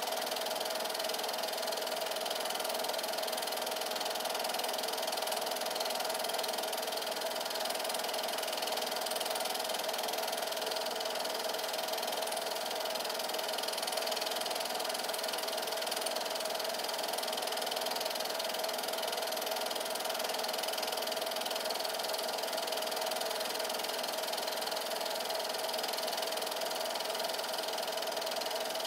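8mm film projector running with a steady mechanical whir from its motor and film transport.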